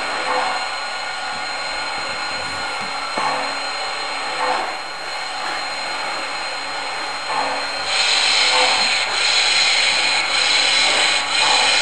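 MTH RailKing O scale Blue Comet model steam locomotive running slowly on three-rail track, its sound system giving slow steam chuffs about one every second and a half over a steady hiss. About eight seconds in, the sound gets louder and brighter.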